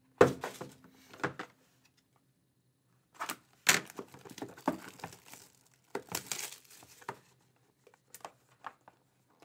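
Cardboard trading-card box and its wrapping being opened by hand: crinkling, tearing and rustling in several short bursts. The loudest bursts come right at the start and about four seconds in.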